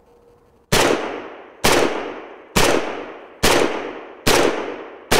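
Romanian WASR-10 AK rifle in 7.62×39 fired six times, evenly paced single shots a little under a second apart, each trailing off in an echo. The first shot comes about 0.7 seconds in.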